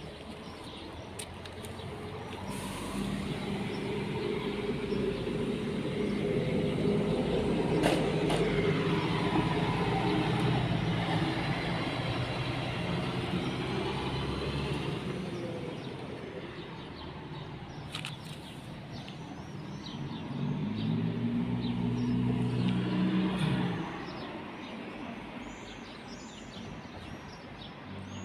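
Motor vehicles passing: one engine swells and fades over about a dozen seconds, then a second rises in pitch and cuts off suddenly about three-quarters through. Small birds chirp faintly near the end.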